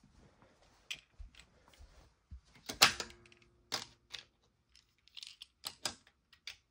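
Scattered clicks and clacks of small die-cast toy cars being handled and set down, with a sharp clack and a short ring about three seconds in as the loudest.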